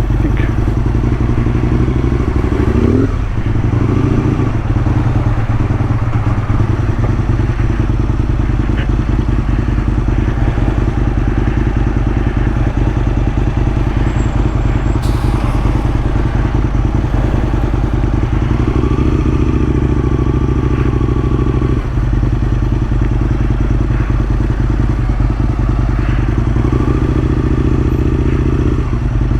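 A motor running steadily, with louder stretches of a few seconds about three seconds in, about two-thirds of the way through, and near the end.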